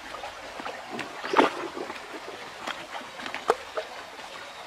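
A ripe jackfruit being pulled apart by hand and cut with a knife: a few sharp clicks and one louder, short noise about a second and a half in, over the steady rush of river water.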